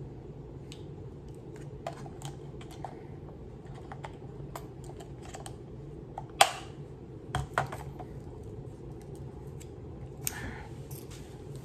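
Small plastic objects being handled: scattered light clicks and taps over a steady low hum, with a sharper knock about six seconds in, two more about a second later, and another near ten seconds.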